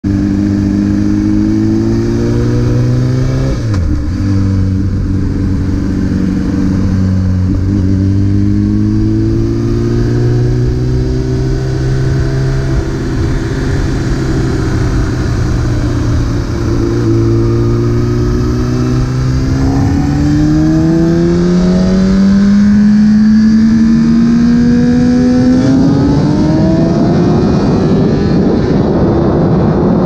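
Honda CBR1000RR Fireblade inline-four engine under way, heard from a helmet chin mount. Its note drops sharply twice in the first eight seconds, holds steady, then climbs in pitch on a long pull, with wind noise growing near the end.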